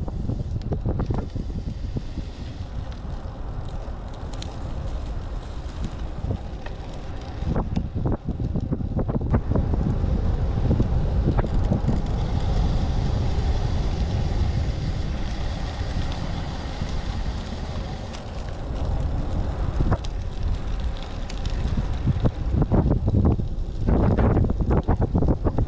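Heavy wind buffeting an action camera's microphone on a fast road-bike descent: a rough, gusty rumble that rises and falls, growing louder near the end.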